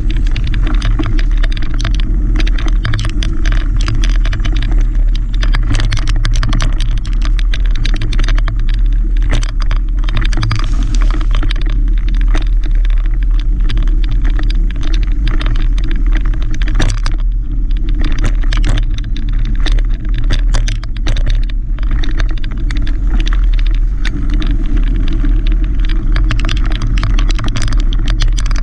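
Mountain bike riding over a dirt singletrack, heard through the rider's camera microphone: a steady low rumble of wind and riding noise with many quick clicks and rattles from the bike bouncing over the trail.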